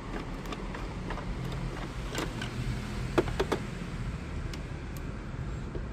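Screwdriver working the back-panel screws out of a National RX-5060 radio cassette recorder: a few faint clicks and two short squeaks about three seconds in, over a steady low hum.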